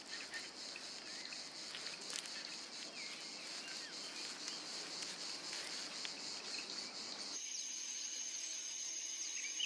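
Insects chirping in a steady high-pitched chorus, with a few short bird chirps. About seven seconds in, the ambience switches abruptly to a different, steadier high insect trill, and bird chirps pick up near the end.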